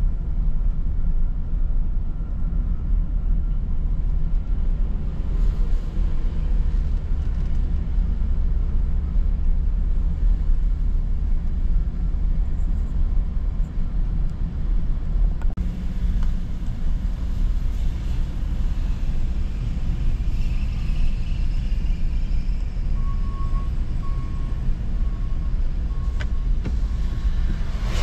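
Car driving, heard from inside the cabin: a steady low rumble of engine and tyre noise.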